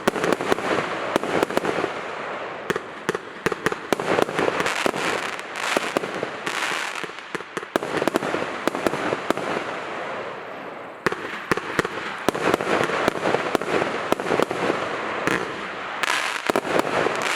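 X901 Tornado firework going off in a dense, continuous barrage: constant crackling packed with many sharp bangs.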